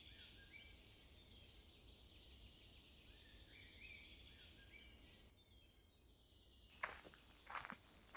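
Faint chorus of birds, many short rising chirps overlapping. From about seven seconds in come a few footsteps on dirt ground.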